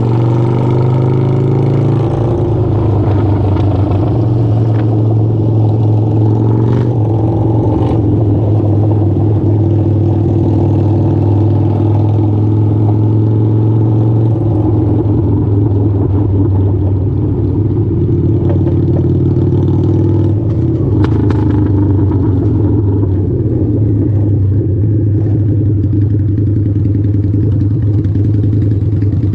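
Harley-Davidson V-Rod's liquid-cooled V-twin engine idling steadily and loudly at close range, its note shifting slightly a few times.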